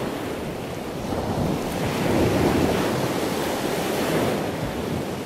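Ocean surf: waves washing in, swelling about two seconds in and easing off again.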